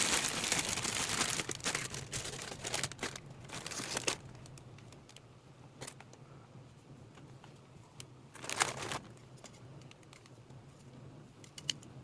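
Crinkling and rustling, dense for about the first four seconds, then thinning to scattered faint clicks with one short rustle about eight and a half seconds in.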